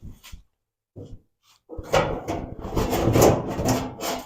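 Sheet-metal trunk pan scraping and rubbing against the car body as it is pushed into place: a few short scrapes at the start, a brief pause, then a continuous scrape with small knocks from about two seconds in.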